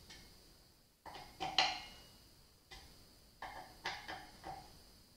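A steel hex key clinking against a motorcycle's brake rotor bolts as they are tightened: sharp metallic clicks in small clusters, each leaving the steel disc ringing briefly.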